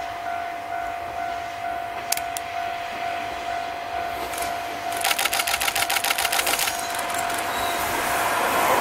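KiHa 52 and KiHa 28 diesel railcars approaching, the noise of their DMH17 engines and wheels growing louder near the end. About halfway there is a rapid run of sharp clicks, about eight a second for under two seconds, over a steady high tone.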